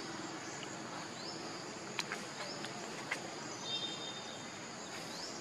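Steady chorus of insects, with a short high rising chirp repeating about once a second and a couple of faint clicks.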